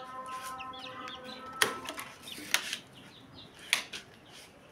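Three sharp clacks about a second apart as a pigeon cage's door and latch are worked open, with chicks cheeping faintly in the first second or two.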